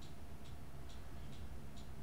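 Regular light ticking, about two ticks a second, over a low steady hum.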